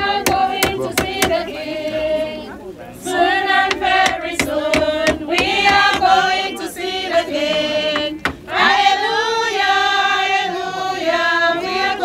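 A crowd of mourners singing a hymn together, unaccompanied. The singing pauses briefly twice. A quick run of sharp taps sounds in the first second or so.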